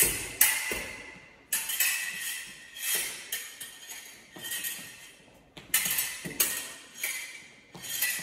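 Fencing foil blades striking and clinking against each other in parries and ripostes: a dozen or so sharp metallic clicks with a short ring, coming in irregular bursts.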